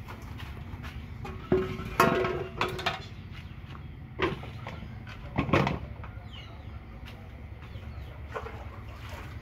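A few sharp knocks and clinks of a metal bowl, a cleaver and a winter melon being set down and handled on a wooden table, some followed by a brief metallic ring. The knocks fall between about one and a half and six seconds in, over a steady low background rumble.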